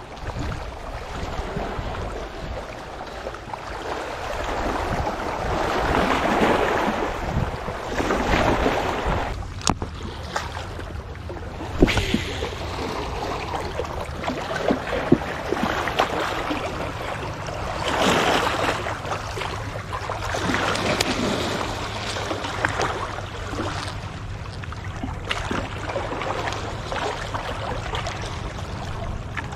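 Small waves lapping and washing against shoreline rocks, swelling and fading every few seconds, over a steady low rumble of wind on the microphone. A few sharp clicks stand out near the middle.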